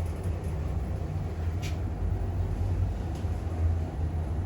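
Passenger lift car travelling upward between floors: a steady low rumble and hum of the car in motion, heard from inside the cab, with one faint click partway through.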